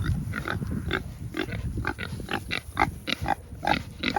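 Kunekune pigs grunting: a quick run of short grunts, about four a second.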